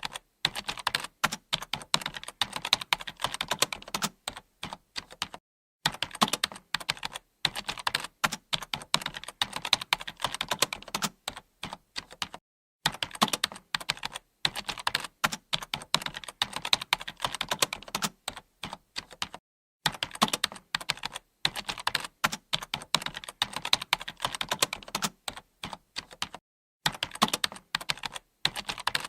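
Fast typing on a computer keyboard: a dense, continuous run of key clicks, broken by a few short pauses of under a second.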